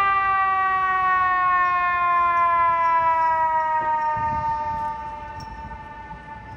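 Fire truck siren winding down: one long tone with overtones, falling slowly in pitch and growing softer about five seconds in.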